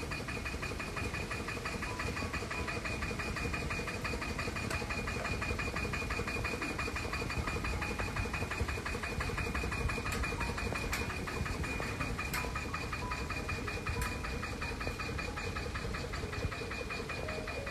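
Single-cylinder diesel engine of a walk-behind hand tractor running steadily at one speed with an even, rapid pulse, powering a rope hoist that lifts buckets of concrete up to the roof.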